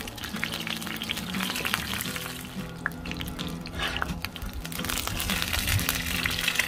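Calzone shallow-frying in a pool of hot oil on a flat-top griddle: a continuous sizzle with many small crackling pops.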